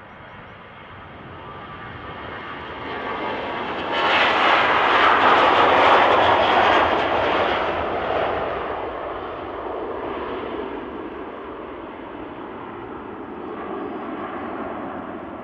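Boeing 737 jet engines at takeoff thrust during the takeoff roll and climb-out. The sound grows louder, jumps up sharply about four seconds in and peaks, then fades as the aircraft climbs away, with a smaller swell near the end.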